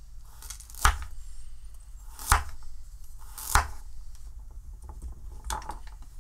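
Chef's knife slicing a peeled carrot into rounds on a wooden cutting board: four separate cuts, each a sharp knock on the board, a second or more apart.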